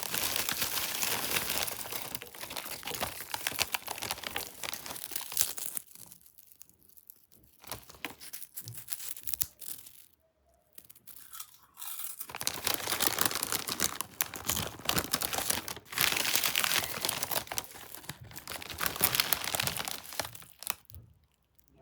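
Plastic snack bag crinkling and tearing as it is handled and opened. The sound comes in two long, dense stretches with a quieter, sparser gap in the middle.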